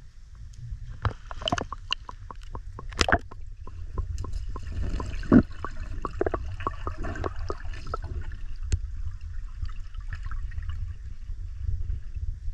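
Water splashing and gurgling around a camera at the waterline and then under water, with a run of sharp clicks and knocks through the first eight seconds or so over a steady low rumble.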